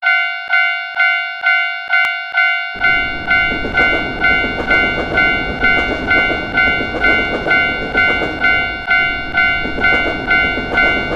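Japanese railroad crossing (fumikiri) alarm ringing its repeated "kan-kan" tone, about two strikes a second. From about three seconds in, the rumble of a passing train runs underneath it.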